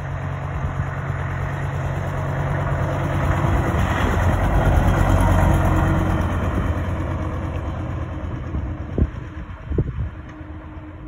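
Engine of a vintage front-engined double-decker bus driving past, growing louder as it approaches, loudest about five seconds in, then fading as it pulls away. Two short sharp knocks near the end.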